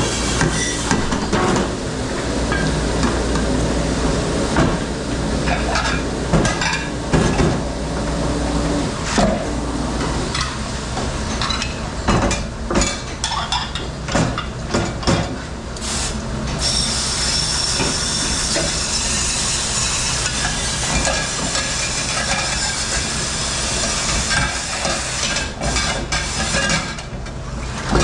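Commercial dish room at work: plates, trays and utensils clattering and knocking irregularly over a steady machine hum and a hiss of spraying water.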